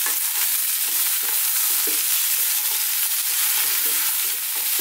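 Potatoes, cauliflower and chopped tomato sizzling over high heat in a nonstick frying pan, with a wooden spatula scraping and turning them in quick, irregular strokes under a steady hiss.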